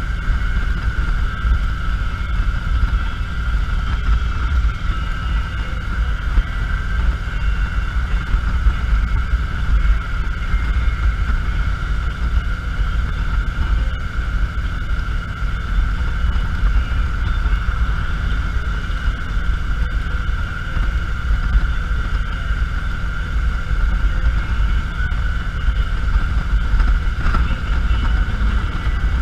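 Cruiser motorcycle riding at a steady speed: a low, even engine and road rumble with wind on the microphone, and a thin steady whine above it.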